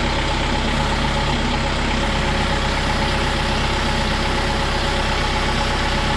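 Kubota M6060 tractor's four-cylinder diesel engine idling steadily.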